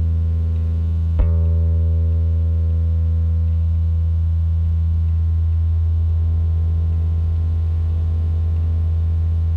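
A post-rock band's closing drone: a loud, steady low note held under sustained tones, with one struck note about a second in that rings out and slowly fades.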